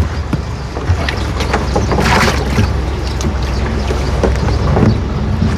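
Truck engine idling with a steady low rumble. About two seconds in comes a short rush of splashing water as live fish are released from the truck's tank.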